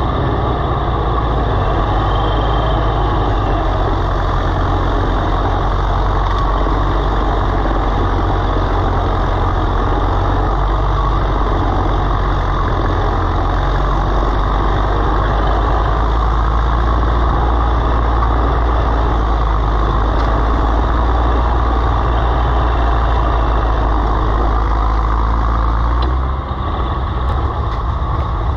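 Tractor engine running steadily under load while plowing sod, with a brief dip in level near the end.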